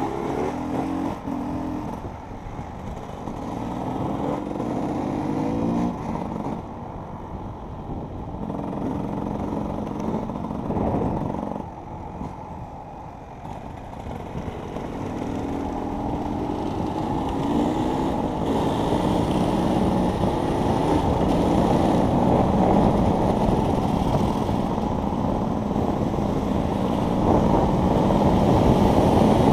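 Enduro motorcycle engine running hard, its pitch climbing and dropping again and again as the throttle opens and closes. It eases off for a moment about twelve seconds in and runs louder near the end.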